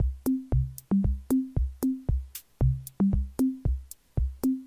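Background electronic music: a drum-machine beat of kick drums and short bass notes that step upward in a repeating phrase, at about four beats a second.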